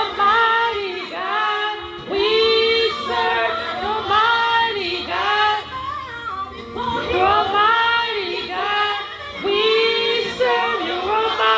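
Female voice singing in held, gliding phrases through a small karaoke machine's microphone and speaker, without clear words.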